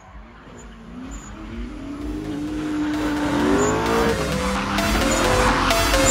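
A car's engine and tyres squealing, the pitch wavering up and down, mixed with electronic music that fades in with a steady beat; the whole grows steadily louder.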